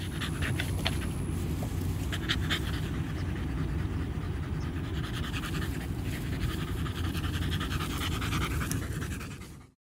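Micro exotic bully dog panting steadily with its mouth open.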